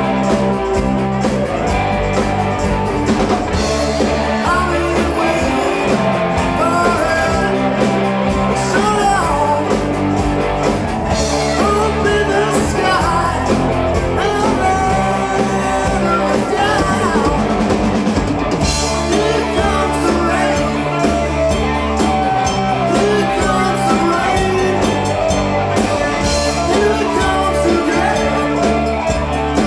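Rock band playing a song: sung vocals over guitar and drum kit at a steady level.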